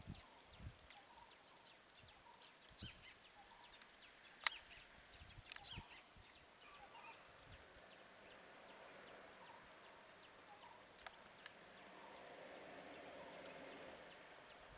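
Near silence with faint bird calls chirping now and then, and a single sharp click about four and a half seconds in.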